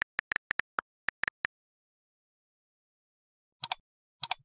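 Keyboard-typing sound effect: about a dozen quick key clicks over the first second and a half, then a pause. Near the end come two mouse-click sounds, each a quick press-and-release double click.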